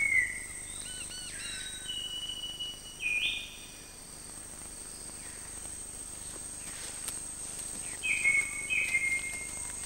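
Forest birds giving short whistled calls: a quick run of notes about a second in, a longer call from about two to three and a half seconds, and a few more near the end. Beneath them runs a steady high insect drone.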